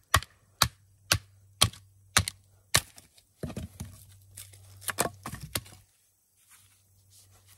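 A baton strikes the spine of a Reiff Knives Circadian bushcraft knife (3.5-inch MagnaCut blade), driving it down through a stick: six sharp knocks, about two a second. Then the split wood crackles and tears as the halves are pulled apart by hand.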